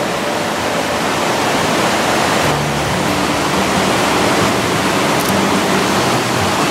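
Johnston Creek's white water rushing through a narrow rock canyon, a loud steady hiss of fast water. Faint music tones sit underneath.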